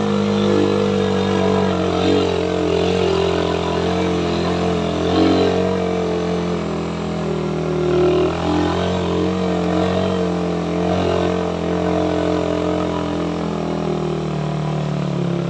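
Suzuki Raider 150 single-cylinder motorcycle engine running steadily while riding along the road.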